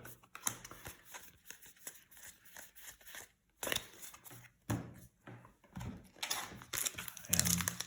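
Trading cards and a foil booster-pack wrapper being handled: light clicks and rustling, with crinkling that grows louder near the end.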